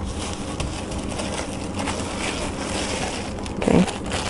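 Thin plastic sheet crinkling and rustling as hands fold a pressed disc of masa inside it and lift it off a metal tortilla press, a dense run of small crackles.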